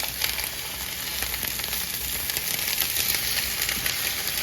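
Bok choy searing in sesame oil in a frying pan, giving a steady sizzle with small crackles.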